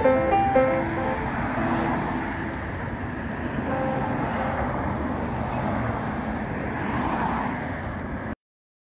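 Road traffic: cars passing on a multi-lane city road, a steady noise of tyres and engines. It cuts off suddenly near the end.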